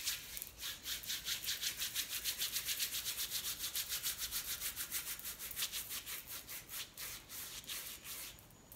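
Hands rubbing the frayed end of a synthetic faux loc briskly back and forth, a fast, even swishing of skin on hair at about six strokes a second. The friction heat is what re-forms the unravelled end into a loc. The rubbing stops just before the end.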